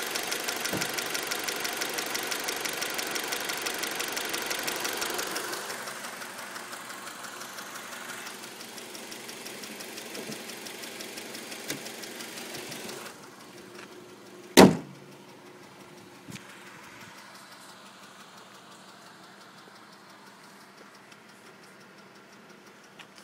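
2003 Acura RSX four-cylinder engine idling with a fast, steady ticking that has persisted after a valve adjustment; the engine and ticking grow fainter about five seconds in and again near thirteen seconds. A single loud thump about fourteen and a half seconds in.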